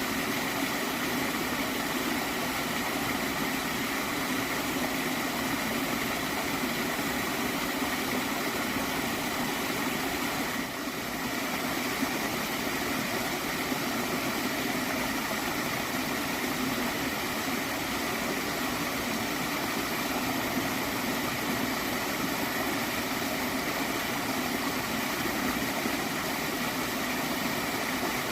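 Water in a stream flowing and gurgling in an even, steady rush, with a brief dip in level about eleven seconds in.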